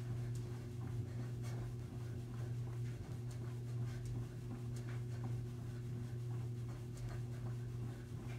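Soft, scattered thuds and scuffs of sneakers on carpet from jogging in place, over a steady low hum that is the loudest sound.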